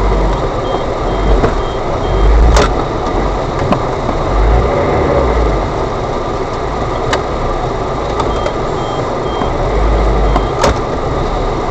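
Isuzu Bighorn 4x4 engine running as it crawls off-road over rough ground, a steady rumble with a few sharp knocks. A faint high beep repeats in two short runs, about a second in and near the end.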